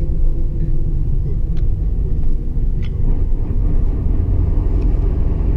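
Steady low rumble of a coach bus driving along, heard from inside the passenger cabin: engine and road noise, with a couple of faint clicks.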